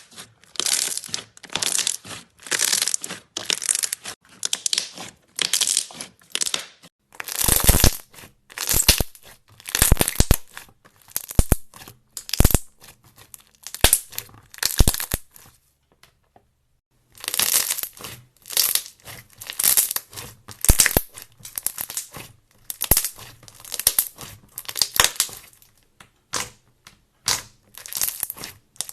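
A crisp, crumbly material being crushed and broken apart by hand in repeated crunching squeezes, about one or two a second. There is a pause of about a second and a half a little past the middle.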